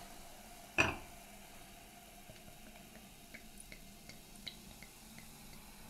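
Vintage champagne, Pascal Mazet Premier Cru Brut 2012, being poured into a tilted tasting glass, faintly fizzing with many small crackling bubble pops. A single sharp knock about a second in.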